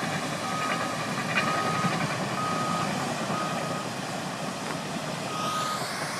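Backup alarm of reversing heavy equipment beeping about once a second, five beeps with a longer gap before the last, over a steady noise of machinery. A rising hiss comes in near the end.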